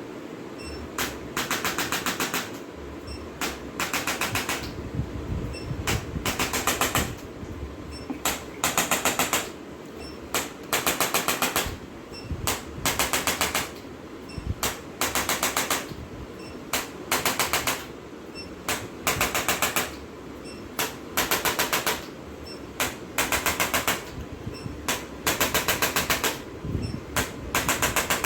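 A chiropractic adjusting instrument firing in bursts of rapid mechanical taps, about ten a second. Each burst lasts about a second and repeats every second or two, with single clicks in between, over a low steady hum.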